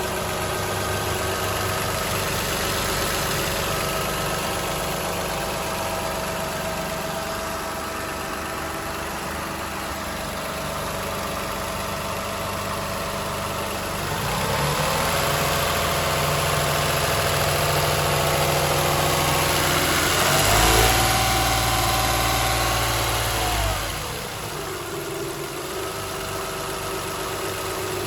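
2007 Toyota Highlander's 3MZ-FE 3.3-litre V6 idling with a rattling, knocking noise, which the owner thinks may be an exhaust leak. About halfway through it is revved and held up, raised higher a few seconds later, then drops back to idle.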